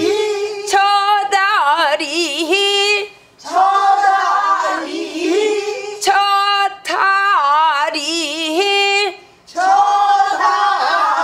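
Woman singing a Korean folk-song line in a pansori-style voice, in four sung phrases with wide, wavering vibrato and pitch bends, separated by short breaths. An occasional sharp knock falls between phrases.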